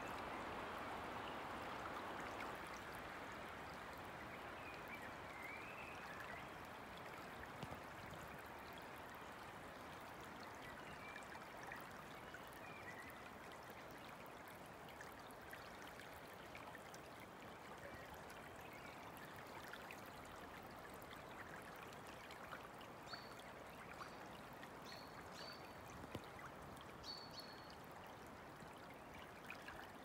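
River floodwater flowing steadily, swirling past the trunks of flooded trees in a faint, even rush. Birds chirp faintly now and then, with a run of short high chirps in the second half.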